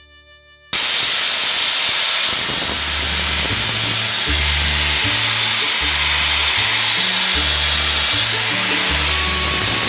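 Steam locomotive 3801 venting steam low at the front, by its cylinders: a loud, steady hiss that starts suddenly about a second in.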